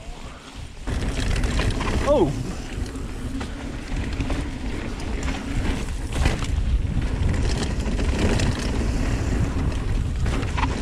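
Kona Honzo ST hardtail mountain bike coasting down a dirt trail: knobby tyres rumbling over the dirt and the rear hub's freewheel ticking. It gets louder about a second in as the bike picks up speed, with a short falling squeak about two seconds in.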